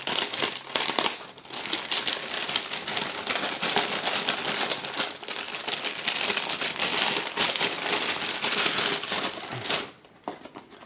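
A shipping package being opened by hand, its packaging crinkling and crackling with dense rapid clicks. The sound stops abruptly about ten seconds in.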